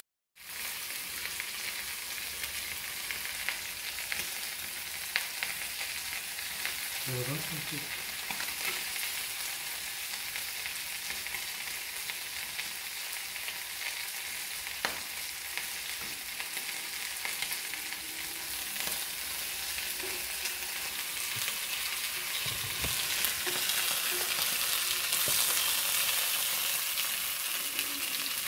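Chicken thighs and finely chopped onions frying in a skillet, a steady sizzle with a few clicks and scrapes of a spatula and tongs against the pan. The sizzle grows louder near the end, after a moment of silence at the very start.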